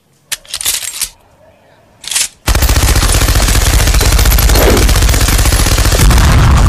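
Machine-gun fire sound effect. Two short bursts come first, then about two and a half seconds in a long, loud continuous burst of rapid fire runs on. An explosion's low rumble joins it near the end.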